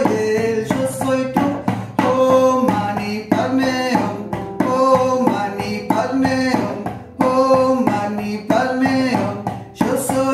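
A woman chanting a mantra kirtan-style, singing short repeated phrases of a couple of seconds each while beating time with her hands on a djembe.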